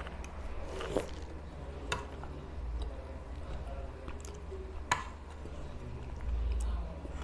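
Close-miked soft, wet chewing of rasabali, fried chhena patties soaked in sweetened thickened milk, broken by three sharp clicks of the steel spoon about 1, 2 and 5 seconds in. A low steady hum runs underneath.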